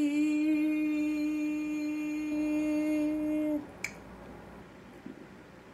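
A woman's voice holding one long sung note on the word "hear", steady in pitch for about three and a half seconds, then breaking off; a single short click follows.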